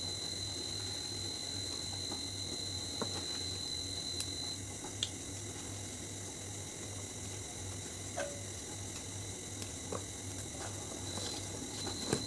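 Faint, occasional snaps and rustles of leafy stems being broken and stripped by hand, over a steady low hum and a thin high whine that drops out about four seconds in and returns near the end.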